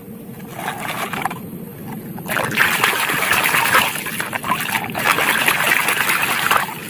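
A plastic toy truck being swished by hand through a muddy puddle: splashing and sloshing of water, growing loud about two seconds in as the toy is washed.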